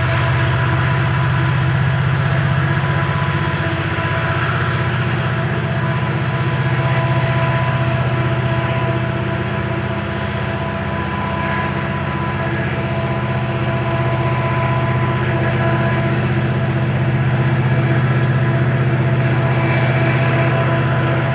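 A set of EMD SD70-series diesel locomotives working as mid-train helpers under heavy load, moving a loaded coal train up the grade. Their engines make a loud, steady low drone, with steady higher tones held above it.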